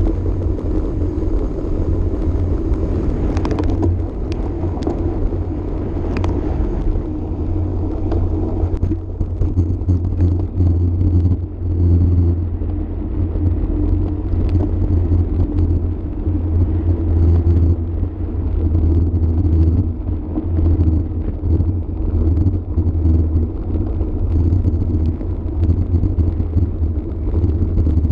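Wind buffeting the microphone of a camera riding along on a road bike at race speed, a heavy low rumble over the hum of tyres on the path. A few sharp clicks come about three to six seconds in.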